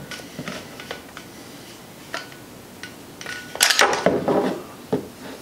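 Plastic and metal clicks and scrapes as an angle grinder's gear head and armature are worked out of the motor housing, with a louder burst of knocks and clatter about three and a half seconds in.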